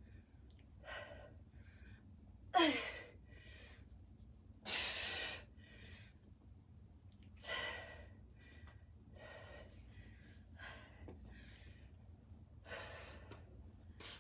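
A person's heavy breathing during kettlebell goblet squats: a string of short, breathy exhales roughly once a second, the loudest about two and a half seconds in, sliding down in pitch, and another about five seconds in.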